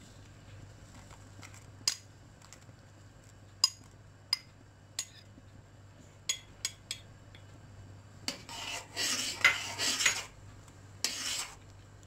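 A steel ladle clinking sharply against a stainless steel pot, several single taps spread over a few seconds, then scraping and stirring through the thick milk pudding in the pot near the end.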